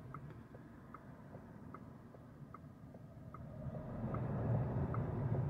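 A VW ID.3's turn-signal indicator ticking steadily, about one tick every 0.8 seconds, over low road and tyre rumble in the car's cabin. The rumble grows louder over the last couple of seconds as the car picks up speed.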